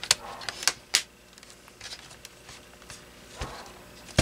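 Plastic clicks and knocks as a laptop's screen bezel is pressed onto the display lid; the bezel is not seating down correctly. Several sharp clicks come in the first second, with quieter handling between and two more knocks near the end.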